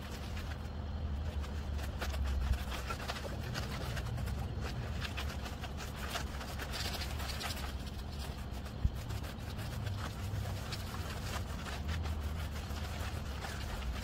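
Concrete mixer truck's diesel engine running steadily in the background, with intermittent scraping of hand tools working wet concrete. Two short sharp knocks, about two and a half seconds in and again near nine seconds.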